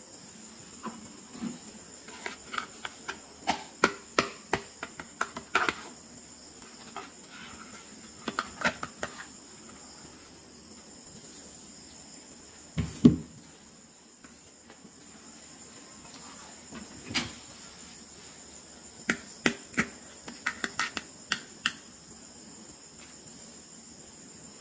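Plastic toys being handled and set down on a mat: clusters of light clicks and taps, with one heavier knock about halfway through. A steady high-pitched whine runs underneath.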